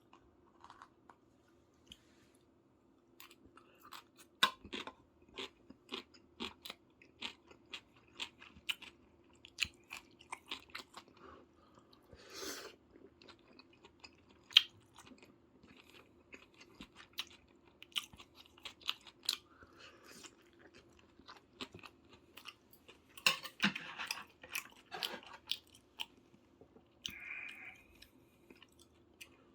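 A person eating close to the microphone: chewing and biting, with many small sharp clicks and smacks at an irregular pace, over a faint steady hum.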